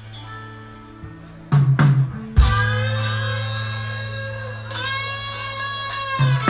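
Rock band playing live: electric guitar and bass let quiet notes ring, then loud drum hits come in about a second and a half in and the band holds a big sustained chord over a deep bass note, with more hits near the end.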